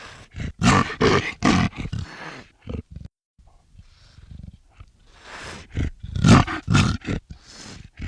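Black leopard roaring in two bouts of short, rough calls, about four or five calls in each, with a pause of a few seconds between the bouts.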